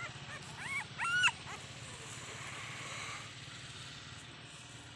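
Newborn pit bull puppy whimpering: several short, high-pitched squeals that glide up and down, the loudest and longest about a second in.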